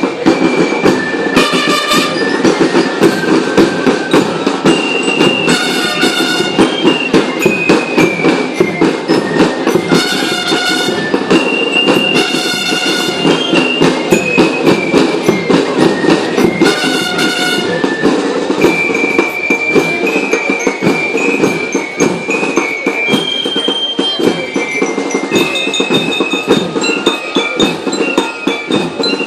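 A band playing: fast, continuous drumming with a high, bell-like melody of short notes over it.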